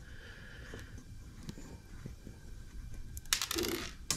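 Light handling noise from a small brass model engine being taken apart by hand, as the valve cover's small screws are worked loose. A few sharp metallic clicks and scrapes come near the end.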